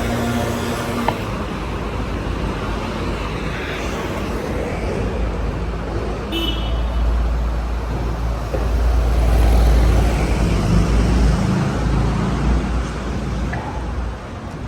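City street traffic: motor vehicles passing with a continuous low engine rumble that swells loudest about two-thirds of the way through, and a brief high squeal near the middle.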